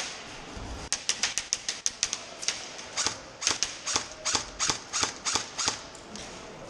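Airsoft gunfire: a run of sharp snapping shots, a quick cluster in the first two seconds, then a steadier string of about three shots a second that stops near the end.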